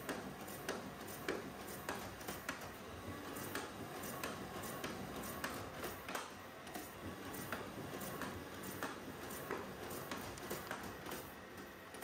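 Risograph printer running a print job: a steady mechanical run with regular clicks, roughly one to two a second, as sheets feed through and are thrown into the output tray.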